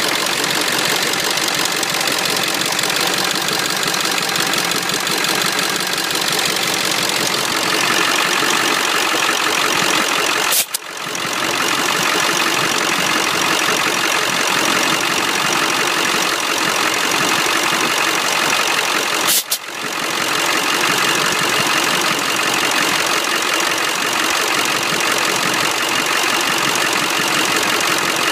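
Ford 7.3 Powerstroke V8 turbo diesel idling during a running compression test on cylinder eight. It runs rough with a misfire on number eight, which the mechanic puts down to internal wear from dust let in by a broken air filter box. The sound cuts out very briefly twice, about 11 and 19 seconds in.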